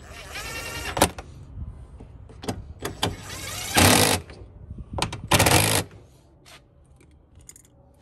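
Cordless DeWalt impact driver driving the screws that hold a truck door's pull handle: a short rising motor whine at first, then two brief bursts of hammering about a second and a half apart as the screws tighten.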